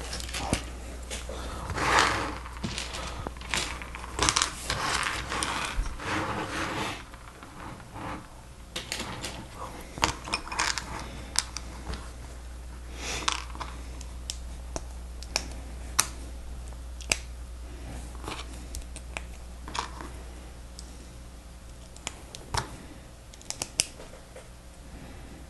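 Small plastic Lego Technic pieces clicking and rattling as they are handled and sorted: a dense spell of rummaging in the first seven seconds, then scattered single sharp clicks.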